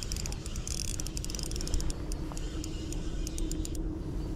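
Shimano Twinpower spinning reel being cranked to retrieve the line, its gearing giving a run of quick, fine clicks that thin out later, over a low rumble.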